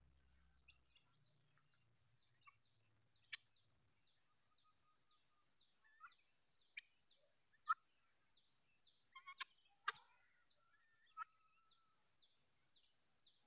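Helmeted guineafowl giving several short, sharp calls, the loudest about halfway through. Under them runs a faint, fast series of high chirps, about three a second.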